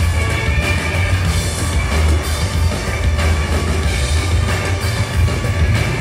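A live rock band playing loud, with electric bass and drum kit to the fore over a heavy, pulsing low end.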